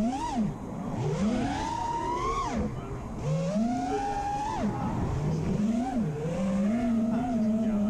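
FPV freestyle quadcopter's brushless motors and propellers whining as the throttle is worked. The pitch climbs over a second or two and then drops sharply, several times, with a couple of quick blips just past the middle. Near the end it holds a wavering, nearly steady pitch.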